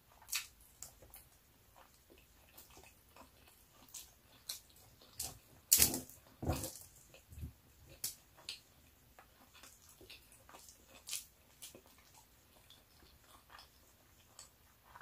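Close-miked eating sounds: chewing and wet mouth smacks on pork adobo and rice, as scattered short clicks, loudest about six seconds in.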